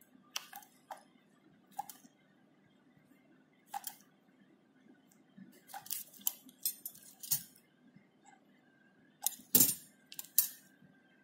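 Steel surgical instruments clicking and clinking, a needle holder and forceps being handled while suturing a skin incision closed. The sharp metallic clicks come irregularly, the loudest a little before the end.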